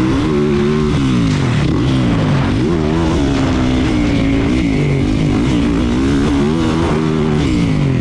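A 450cc four-stroke motocross bike's engine under hard riding, its pitch climbing and dropping again and again as the throttle is worked on and off.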